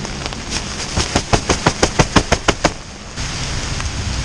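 A rapid run of about a dozen sharp clicks, some five a second, lasting about two seconds over a steady hiss. The hiss continues alone near the end.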